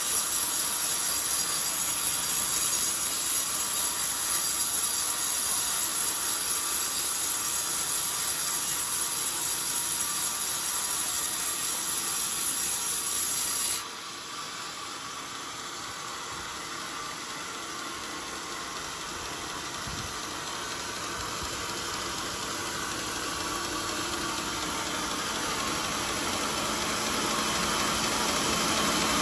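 Band sawmill running and cutting lengthwise through a hard old coconut-palm log, a steady hissing rasp of blade and motor. The sound drops suddenly about halfway through, then slowly grows louder again toward the end.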